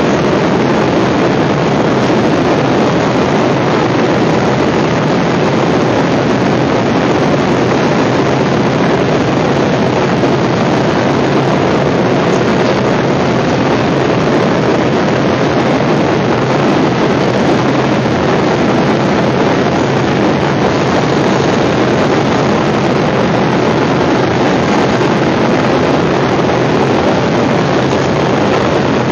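Steady, loud rushing cabin noise of an airliner in flight, engine and airflow noise heard from inside the cabin, unchanging throughout.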